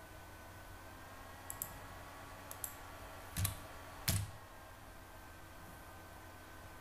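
Scattered clicks of a computer keyboard and mouse: a few light ticks, then two firmer clicks about halfway through, over a faint steady hum.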